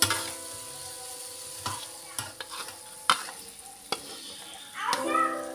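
Metal spatula stirring and scraping food in a wok as it fries and sizzles, with several sharp clinks of the spatula against the pan.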